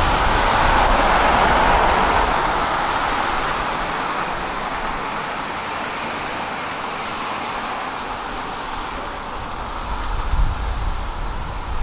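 Street traffic: a vehicle passing by, its noise fading away gradually over several seconds.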